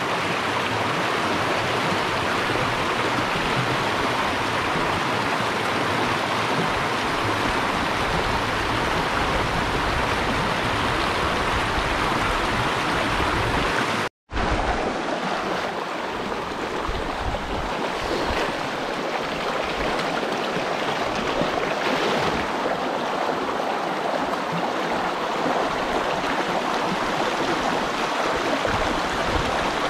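Small high-mountain stream running, a steady noise of rushing water. It cuts out for an instant about halfway through and comes back with less low rumble.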